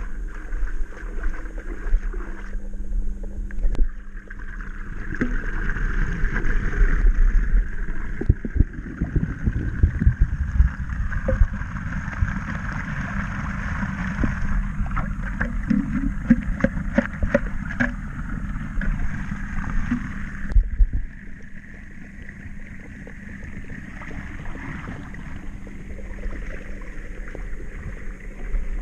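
Water sloshing and gurgling around a clogged flat-roof drain as it is worked clear, with wind on the microphone. Many short splashes and knocks come in the middle. The sound then drops away sharply about two-thirds of the way through.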